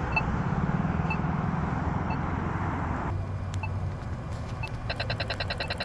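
Polara iNS accessible pedestrian signal push button ticking its slow locator tone about once a second. About five seconds in it switches to the rapid tick of the walk signal, roughly ten ticks a second. Road traffic hums underneath in the first half.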